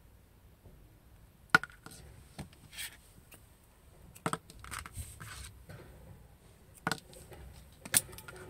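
Scissors snipping through thin earphone cable: a few sharp snips spread out, with soft rustling of the cable being handled between them.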